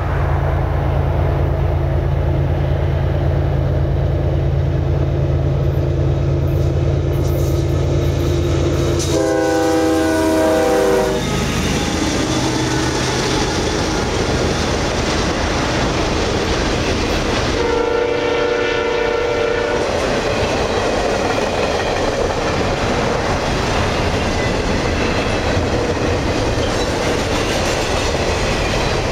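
CSX intermodal freight train passing close by. Its diesel locomotives run with a steady low drone, then sound a chord horn about nine seconds in, the pitch dropping as they pass. A second horn blast comes about halfway through, followed by the steady rush and clickety-clack of the intermodal cars rolling past.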